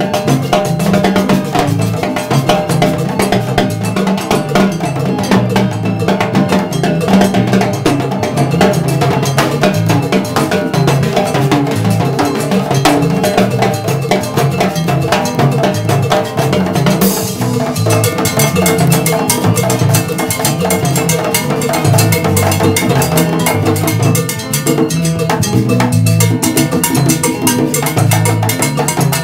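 Salsa band jamming: timbales with a mounted cowbell and jam block driving the rhythm in quick, steady strokes over a walking electric bass line and keyboard. A single cymbal-like crash comes about halfway through.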